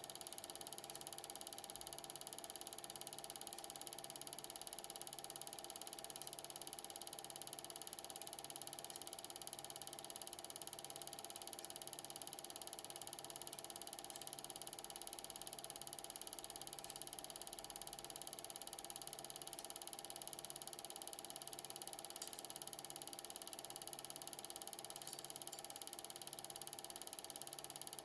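8mm film projector running: a steady mechanical whir and clatter with a soft low pulse repeating a little under once a second.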